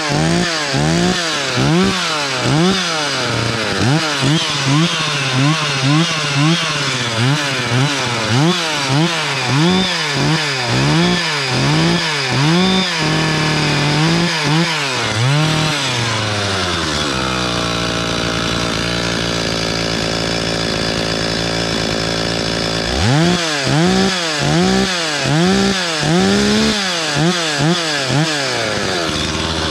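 Two-stroke chainsaw revved in repeated quick throttle blips, a little more than one a second, dropping back between each. Past the middle it settles into a steady idle for several seconds, then is blipped again near the end.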